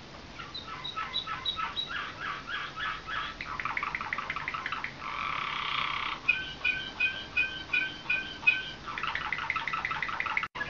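Slavujar song canary singing its song in a chain of repeated phrases: first a series of quick repeated notes, then a rasping, buzzy stretch near the middle, then clear two-pitched notes about four a second, then a fast trill. The sound cuts out briefly and suddenly near the end.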